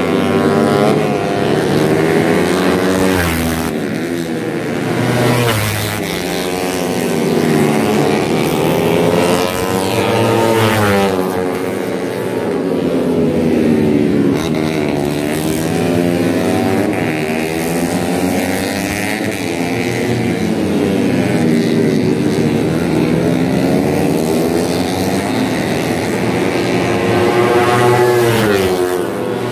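Tuned four-stroke underbone race motorcycles of up to 150 cc running at high revs, several at once. Their engine notes rise and fall again and again, overlapping.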